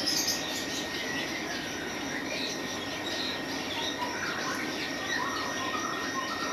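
Many small caged birds chirping in short, scattered calls, over a steady background hiss and a thin steady high tone.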